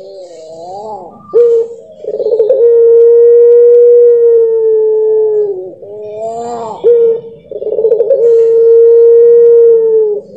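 Puter pelung, a ringneck dove bred for its long coo, cooing twice. Each call opens with short wavering notes and goes into a long held coo of about three seconds that dips in pitch at its end.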